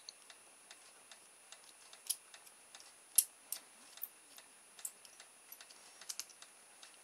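Small screwdriver undoing the tiny screws of a cheap plastic hobby servo case: scattered, irregular light clicks and ticks of the metal tip against the screw heads and plastic housing, the loudest about three seconds in.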